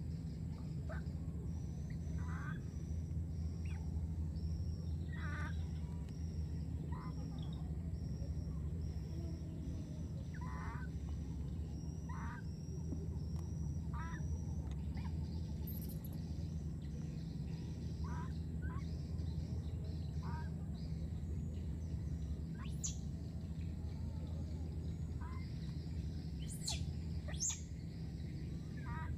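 Outdoor ambience of bird calls: short chirps every second or two, a run of evenly repeated high peeps over the first half, and a few sharp high whistles near the end, over a steady low rumble.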